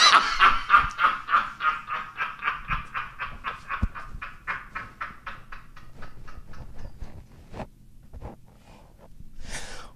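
A person laughing hard, a long run of rapid breathy bursts, about five a second, that slowly fades out.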